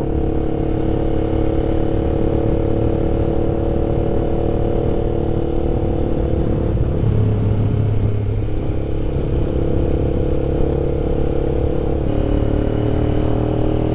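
Honda CBX 250 Twister's single-cylinder engine running under way through a Roncar aftermarket exhaust, a mild rumble. The engine note drops and wavers about halfway through, then rises again near the end.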